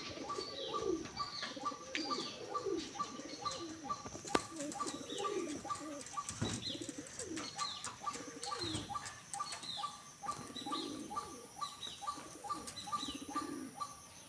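Domestic pigeons cooing while they feed, with occasional wing flaps. Behind them a bird chirps in a quick, steady repeating pattern.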